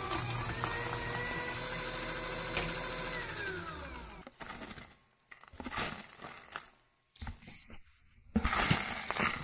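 Converted paper shredder running and chewing through 3D-printed plastic, a steady motor whine whose pitch drops as it stops about four seconds in. Then a few separate bursts of rattling as a hand stirs through the pile of shredded plastic chips.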